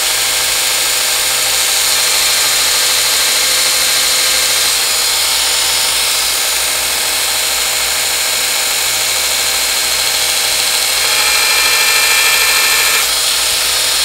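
Sorby ProEdge belt sharpener running with a 600-grit Trizact belt while a skew chisel, held in its angle jig, is ground on it: a steady, loud hiss of steel on the abrasive belt. A thin whine joins in for a couple of seconds near the end, and the sound dies away right at the end.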